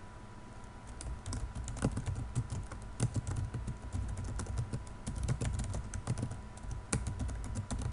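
Typing on a computer keyboard: a quick, irregular run of keystrokes starting about a second in, as a short phrase is typed.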